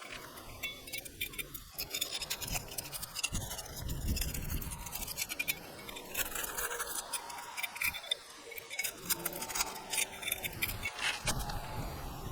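Asphalt shingles being pried up to break their sealant strips: irregular scraping with many small crackling clicks as the bonded tabs tear loose.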